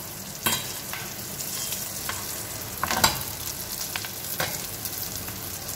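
Prawns frying in coconut oil in a steel pan, sizzling steadily, while a steel spatula stirs and scrapes through them and knocks against the pan a few times, loudest about three seconds in.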